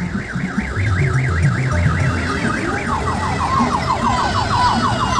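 Electronic siren horn on a passing odong-odong tour bus, a fast wavering tone at about four wobbles a second. About three seconds in it switches to a lower, repeated rising yelp, about three a second. Beneath it is the low running of the buses' engines.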